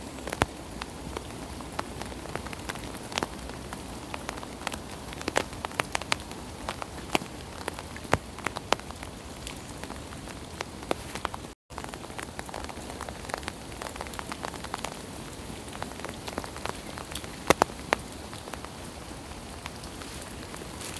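Steady rain falling, with many sharp individual raindrop ticks scattered through it.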